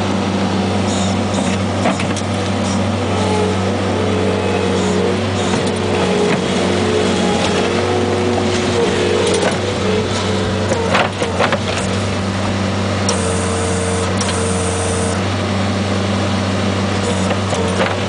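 JCB 170 skid-steer loader's diesel engine running steadily under load as the bucket digs and lifts dirt, with a whine that shifts in pitch as it works. A few knocks and clatters about halfway through.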